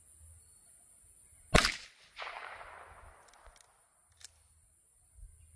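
.22 rifle firing a single shot, sharp and sudden, followed about half a second later by a softer noisy tail that fades over about a second. A few light clicks come a couple of seconds later.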